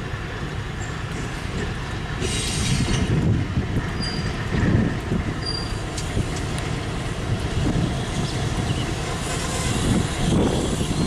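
Diesel switcher locomotive moving slowly along the track with its engine running steadily, hauling a short train. A hiss comes about two seconds in, and a few short high wheel squeaks follow around four to five seconds in and again near the end.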